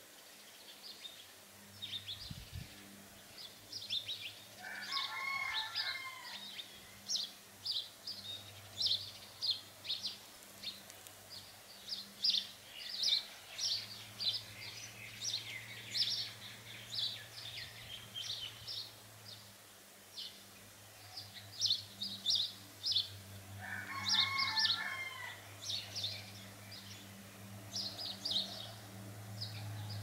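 Outdoor birdsong: many small birds chirping in quick, short notes throughout, with a longer, lower warbling call twice, about five seconds in and again near 24 seconds. A faint steady low hum runs underneath.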